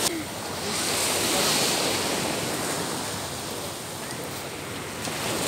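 Ocean surf washing onto a sand beach: a steady rush of breaking waves that swells about a second in and again near the end.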